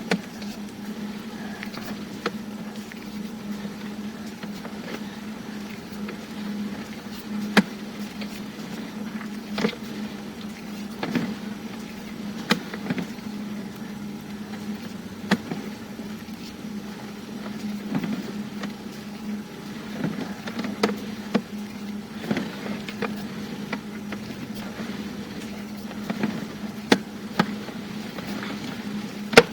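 Sewer inspection camera rig giving off a steady low hum, with irregular sharp clicks and knocks as the push cable is worked back out of the line.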